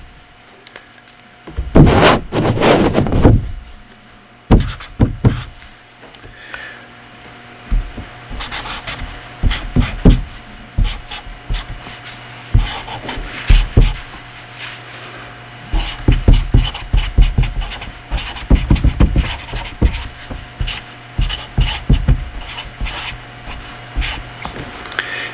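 Irregular scratching, rubbing and tapping strokes of writing by hand, with a loud breathy puff on the microphone about two seconds in and a faint steady hum underneath.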